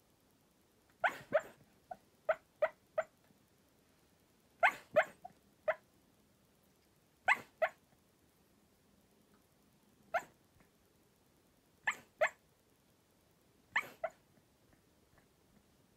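A Cairn Terrier barking in its sleep: short barks that come in little runs of two to four, separated by pauses of a second or two, with single barks near the end.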